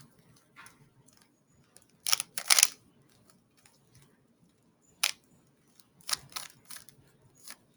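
Rubik's cube being turned in the hands: short runs of sharp plastic clicks and clacks with pauses between them.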